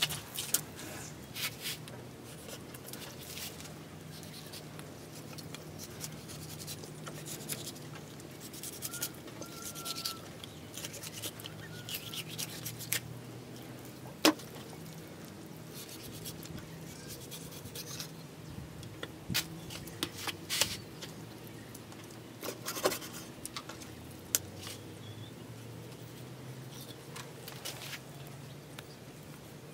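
Knife and cleaver working raw fish fillets on a wooden chopping block: intermittent light scrapes and taps, with one sharp knock about halfway through.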